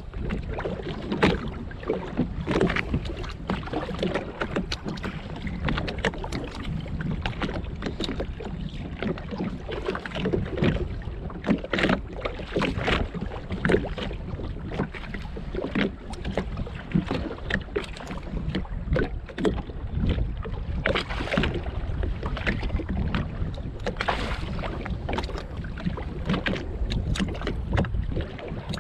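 Small waves slapping and knocking irregularly against the hull of a drifting Sea-Doo GTX jetski, with wind buffeting the microphone.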